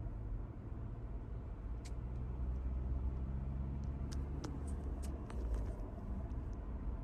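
Hyundai ix35 4x4 running with a steady low hum, the drone that shows up when lifting off the throttle, with a few faint clicks over it.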